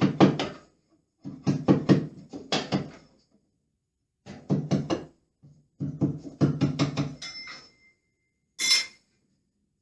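Wet lining paper being slowly torn away in four crackling pulls with short pauses between them; the last pull is short.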